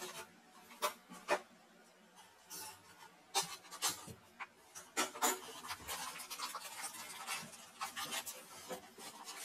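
Clear plastic packing wrap crinkling and crackling as it is handled inside a cardboard shipping box: scattered sharp crackles and rustles, sparse at first and busier after about three seconds.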